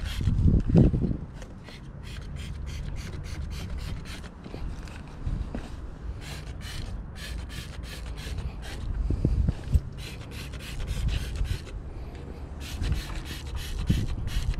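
Hand brush scrubbing a soapy lawn mower caster wheel in quick back-and-forth strokes, about three a second, with a few low thumps of handling.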